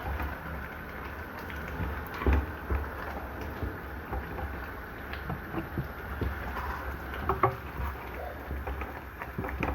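A pot of stew sizzling and bubbling over a steady low rumble, with a few sharp knocks, the loudest about two seconds in and again about seven and a half seconds in, as it is stirred.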